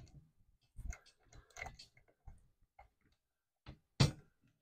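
Steel saw chain links clinking and the guide bar knocking against the body of a Stihl MS 271 chainsaw as the bar and chain are seated onto the sprocket and bar studs. A run of scattered small clicks and rattles, with one sharper knock about four seconds in.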